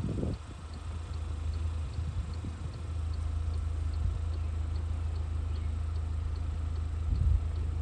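Vehicle engine idling with a steady low hum, and a faint, even, high-pitched tick repeating two or three times a second.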